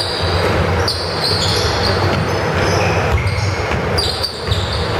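Basketball game on a hardwood gym court: the ball bouncing and sneakers giving short, high-pitched squeaks as players cut and stop, over steady low background noise in the gym.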